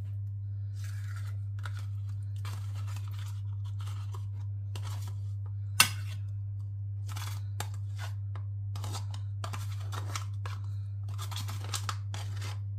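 Yoghurt being scraped out of its pot with a spoon or spatula into a Thermomix mixing bowl: a string of short, uneven scrapes and dabs, with one sharp knock about six seconds in. A steady low hum runs underneath.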